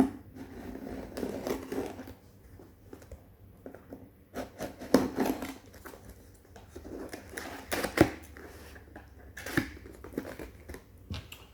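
A ceramic blade cutting packing tape on a cardboard box, with irregular scraping and crinkling and several sharp knocks as the box is handled.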